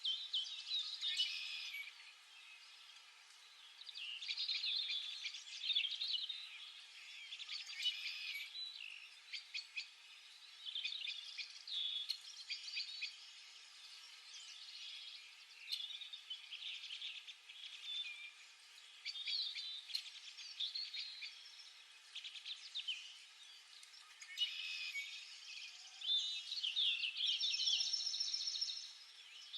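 Small birds chirping and twittering in repeated bursts of quick calls, many overlapping.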